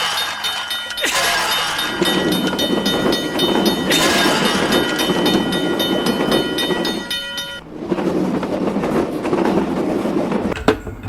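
A train passing a railroad crossing: the rumble and clatter of the cars over steady ringing tones with a regular striking rhythm, typical of a crossing warning bell. The sound changes abruptly about three quarters of the way through.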